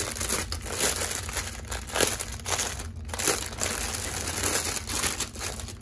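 Clear plastic bag crinkling as hands handle and open a bundle of diamond painting drill packets, an irregular stream of crackles.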